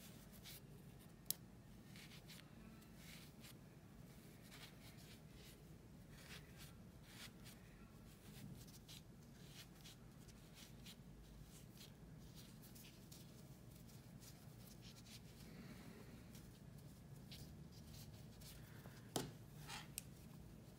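Faint rustling and scratching of polyester fibrefill being pushed into a small crocheted piece with the tips of metal scissors, with scattered light clicks of the scissors and a couple of sharper clicks near the end.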